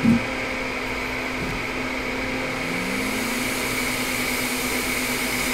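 Steady whir of the electronics bench's fan-driven tools, a fume extractor and a hot-air rework station, with a short knock right at the start. After about three seconds the rushing hiss grows a little as the hot-air nozzle is brought over the board.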